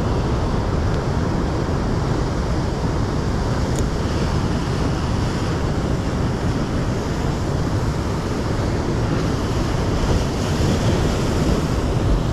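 Ocean surf washing against a rocky shore, steady, mixed with wind buffeting the microphone. A single small click sounds about four seconds in.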